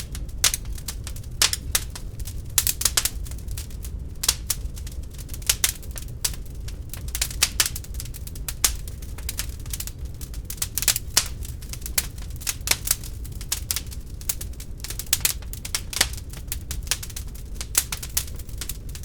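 Wood fire burning in an open fireplace, crackling with a dense scatter of irregular sharp pops and snaps over a steady low rumble of the flames.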